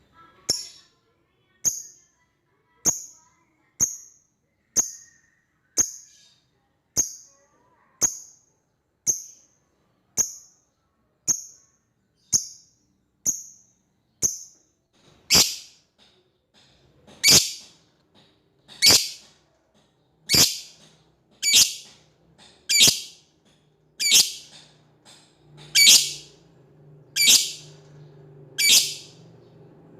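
Lovebird giving short, shrill single calls at a very even pace, about one a second. About halfway through the calls grow louder and longer and come a little further apart.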